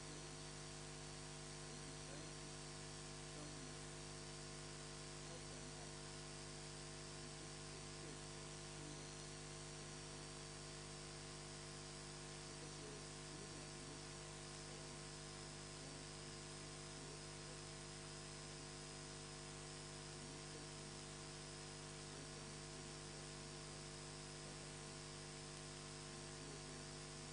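Low, steady electrical mains hum with hiss, and a faint high wavering whine above it.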